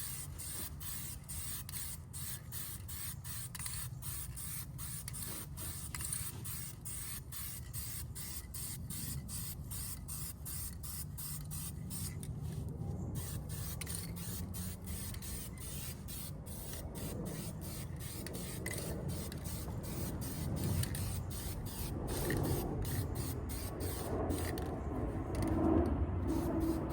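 Aerosol spray can of primer filler hissing in short repeated bursts as it is sprayed, with a couple of brief pauses.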